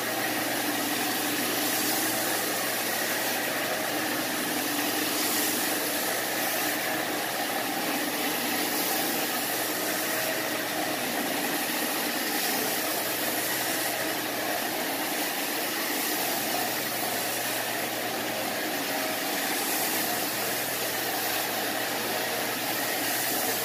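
Portable carpet extractor's vacuum motor running steadily, with a hiss that swells and fades faintly every couple of seconds.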